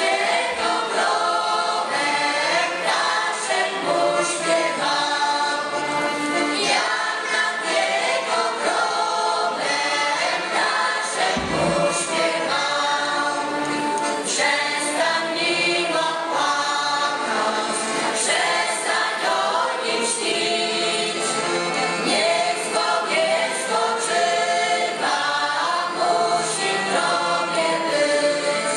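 Mixed folk choir of women's, men's and children's voices singing a folk song together, with an accordion and a violin playing along.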